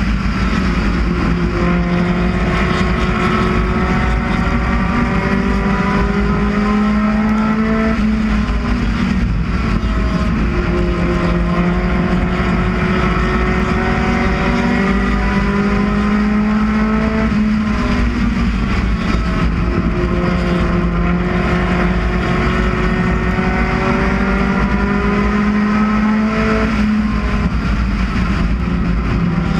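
Four-cylinder UCAR race car engine at racing speed, heard from on board. Its pitch climbs slowly along each straight, then drops sharply as the driver lifts for the turns, about every nine seconds, three times in all.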